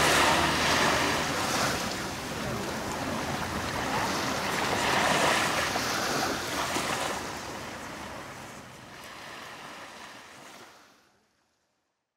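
Small waves breaking and washing up onto a sandy beach: a steady surf hiss that swells a few times as each wave comes in, then fades away and stops near the end.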